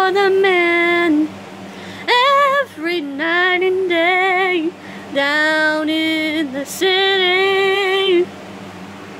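A woman singing unaccompanied, in five or so short phrases of held notes with a wavering vibrato and brief pauses between them.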